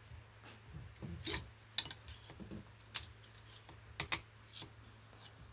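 Scattered light clicks and taps, about five spread across a few seconds, from hands working at a 3D printer and its print, over a steady low hum.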